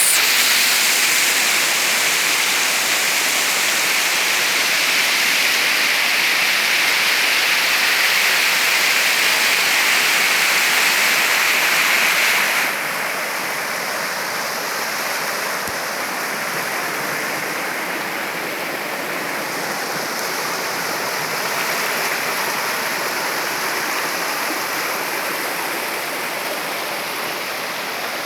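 Large waterfall: a steady, loud rush of falling water. About halfway through it suddenly becomes quieter and duller.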